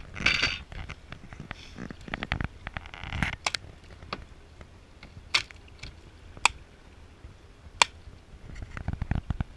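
A landing net with a fish in it being hauled up over the side of a boat: a short splashy rustle near the start, then scattered sharp clicks and scrapes of the net and frame against the hull.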